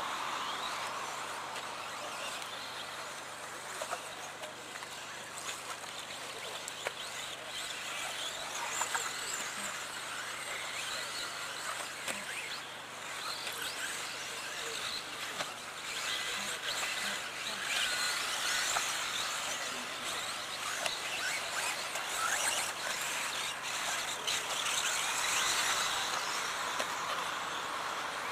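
Brushless-motored 1:10 4WD electric RC buggies racing on dirt: high motor whines rise and fall in pitch with the throttle over a steady outdoor noise, with a few sharp clicks.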